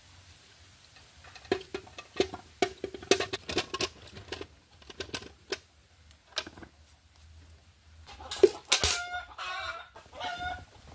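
Onions dropping by hand into an aluminium bucket: a string of knocks, each with a short metallic ring. About eight seconds in there is one loud knock, and then a chicken calls several times.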